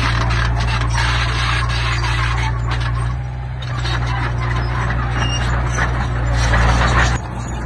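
Heavy diesel earthmoving machine working in stone: a steady engine hum under a loud clatter and scrape of rock and tracks that swells twice and stops abruptly near the end.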